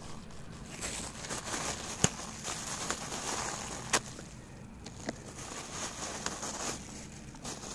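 Thin plastic bag crinkling and rustling in gloved hands as it is opened, with a couple of sharp clicks.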